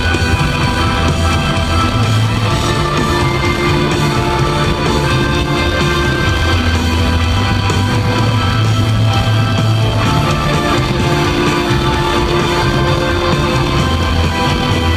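Live rock band playing loudly with electric guitars, bass and drums.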